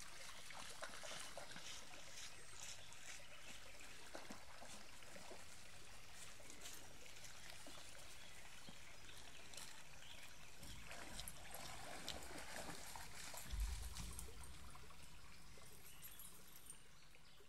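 Shallow brook flowing across a road ford: a steady trickle and babble of water, with a brief low thump about three-quarters of the way through.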